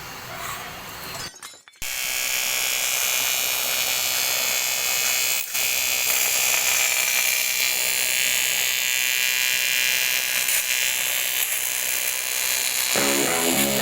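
TIG welding arc buzzing steadily while welding a crack in an aluminium engine block, after a brief drop-out about a second and a half in. Guitar music comes in near the end.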